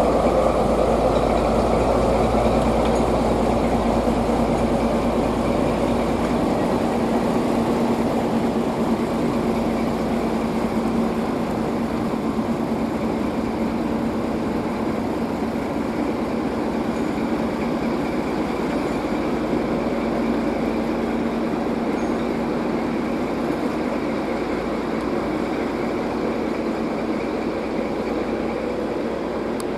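Diesel engine of a TGM4A diesel-hydraulic shunting locomotive running steadily at idle, a constant hum with a low rumble that eases after about six seconds.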